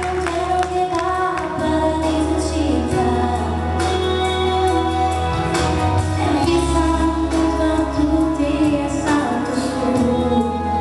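A woman singing live into a handheld microphone over amplified instrumental backing with a steady bass line and a beat.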